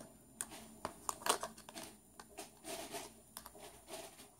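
Small hard plastic toy parts handled in the hands: light scattered clicks and rustling as a little plastic handle is worked into the holes of a yellow plastic ball half.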